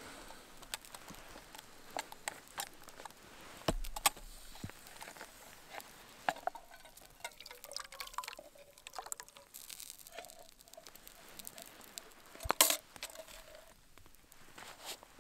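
A thick liquid poured from one metal pot into another, with metal pots clinking and knocking against each other, one sharp knock loudest near the end. Scattered small clicks and crackles from the campfire run underneath.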